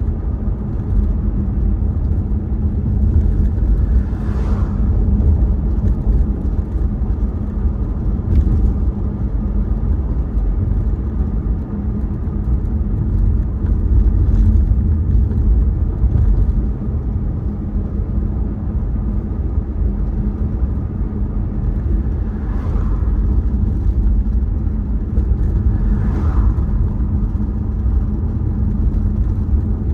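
A car driving along a road, with a steady low rumble of engine and tyre noise and a faint steady hum. A few faint brief knocks come through, about five times.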